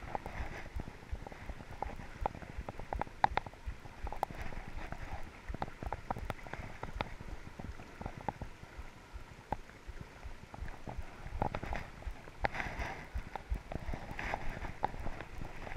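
Fast river current rushing and gurgling over rocks, with irregular small splashes and ticks and a low rumble on the microphone.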